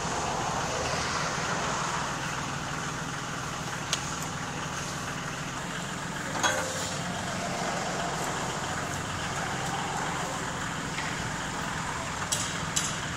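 Kioti backhoe's diesel engine running steadily as the backhoe is worked, with a few sharp clunks: one about 4 seconds in, a louder one about halfway, and two close together near the end.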